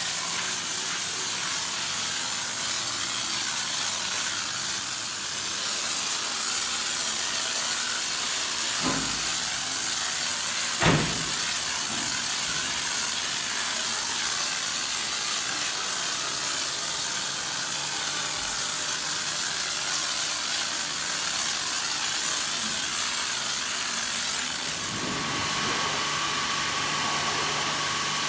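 Pressure washer spraying a high-pressure water jet, a steady hiss, with two dull thumps about nine and eleven seconds in. Near the end a steady low hum starts up under the spray.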